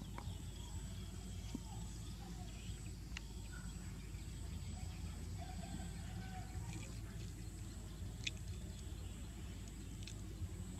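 Outdoor background ambience: a steady low rumble with a thin, steady high whine, a few faint short chirps and scattered faint ticks.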